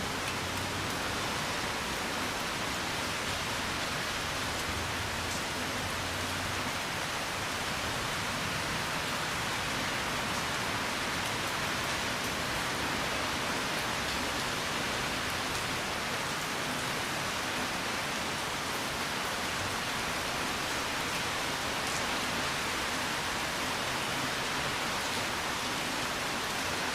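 Steady rainfall, an even hiss of rain falling on surfaces with no letup. A faint low rumble sits under it for the first several seconds.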